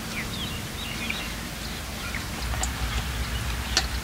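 Small birds chirping a few times in the first second or so, over a steady outdoor background hiss, with a couple of sharp clicks in the second half.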